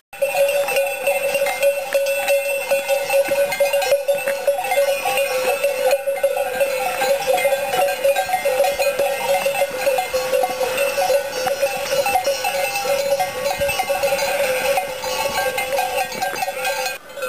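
Many bells on a flock of walking sheep clanking together in a steady, dense jangle.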